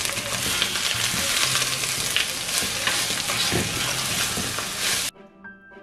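Shredded cabbage frying in a clay pot and being stirred with a wooden spoon: a steady sizzle with the scrape and rustle of the spoon through the cabbage. It cuts off abruptly near the end, leaving faint background music.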